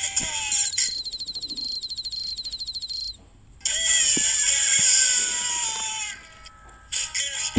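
Animal calls: a rapid, high, pulsing trill lasting about two and a half seconds, then a longer call that slowly falls in pitch, and a short call near the end.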